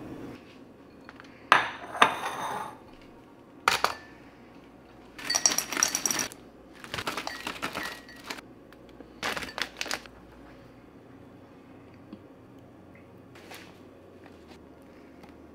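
Kitchenware clinking and rattling as food is handled and seasoned: two sharp clinks near the start and another a couple of seconds later, then three short bursts of rattling, then only faint handling.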